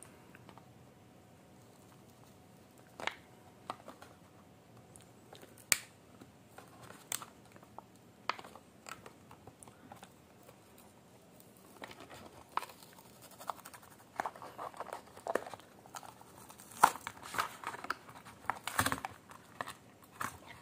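Plastic-and-cardboard packaging of a Hot Wheels Premium die-cast car being handled and opened: separate sharp clicks and crinkles, sparse at first and coming thick and fast in the last several seconds.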